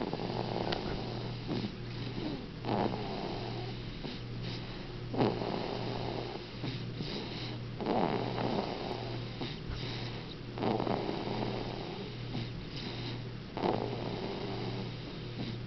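Snoring in slow, even breaths, six in all, about one every two and a half to three seconds, over a steady low hum.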